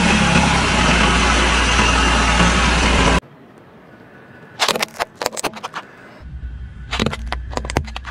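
Car engine running close by, loud and steady, as the tyre rests on a bed of nails, cut off suddenly about three seconds in. Then sharp clicks and crackles of grit under a slowly creeping car tyre on asphalt, in two clusters, with a low engine rumble coming in near the end.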